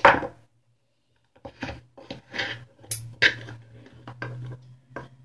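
Two table knives scraping and clinking against the inside of a stainless steel cooking pot in an irregular series of short strokes as butter is cut into flour for pie crust. There is a sharp knock at the very start, and a steady low hum runs beneath the strokes.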